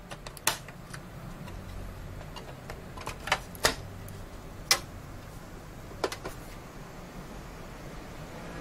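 A series of sharp plastic and metal clicks and taps, irregularly spaced, as a graphics card is handled and pressed into a motherboard's PCIe slot inside a PC case. Beneath them runs a low steady hum.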